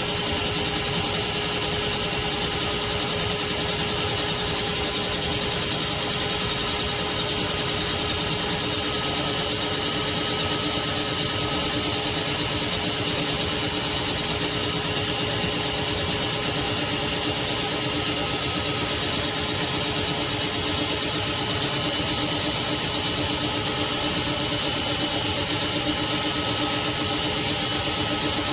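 Craftsman 16-gallon, 6.5 peak HP wet/dry shop vacuum running steadily: a constant motor whine over a rush of air.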